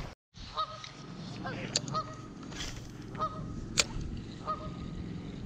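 A goose honking, about five short calls spread through a few seconds, with two sharp clicks in between over a steady low background.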